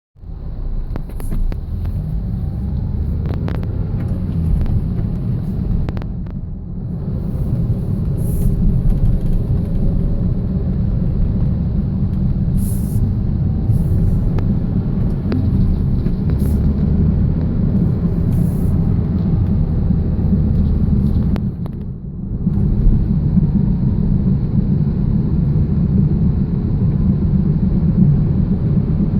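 2000 Toyota Celica GTS driving, with a steady low drone and road rumble that dips briefly about six seconds in and again about twenty-two seconds in. The owner suspects a bad wheel bearing, having ruled out loose lug nuts.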